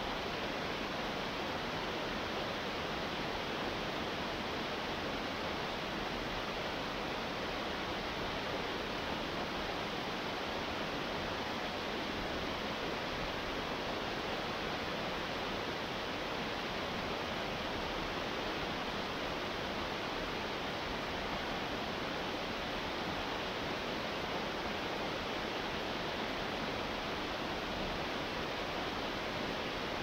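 Water of a cascading waterfall rushing steadily over rocks, an even rush with no change.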